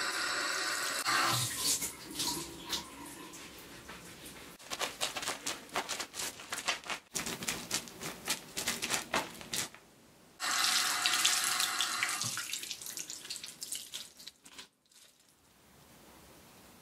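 Bathroom tap running into a sink while a sisal soap net is wetted. Between the two runs of the tap, the soapy net is squeezed and rubbed in quick, irregular wet squishes. The tap runs again about ten seconds in and then stops.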